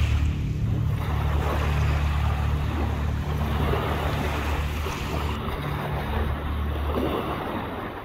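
Small waves washing onto a pebble shore, with a steady low engine hum underneath that stops about seven seconds in.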